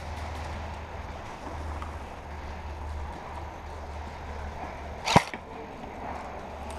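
A single sharp airsoft gun shot about five seconds in, over the steady low rumble and rustle of the player moving.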